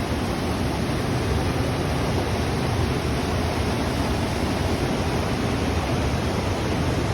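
Steady rush of falling mountain water, a continuous even noise with no breaks.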